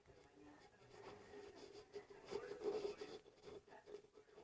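A sleeping man snoring softly, with one breathy snore swelling up about halfway through.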